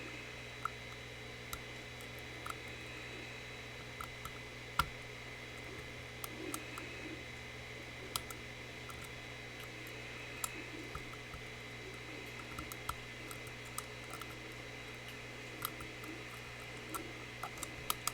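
Lock-picking tools clicking and scraping in the pin chambers of a Mul-T-Lock Classic Pro cylinder: irregular small metallic ticks, a few a second, with one sharper click about five seconds in. A steady hum and faint whine run underneath.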